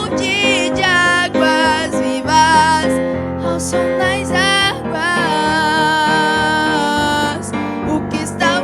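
A praise song: a voice sings over instrumental accompaniment and holds one long note in the middle.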